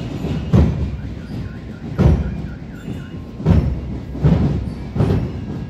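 Marching drum-and-bugle band's drums playing a slow march beat: a bass drum strikes on an even pulse about every three-quarters of a second, skipping some beats, with lighter drumming between the strokes.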